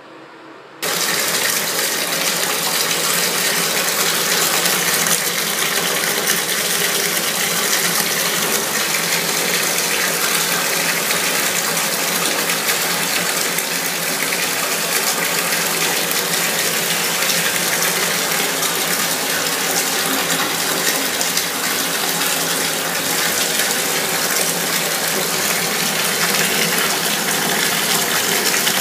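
Water running steadily from a bathtub tap into a filled tub, starting abruptly about a second in.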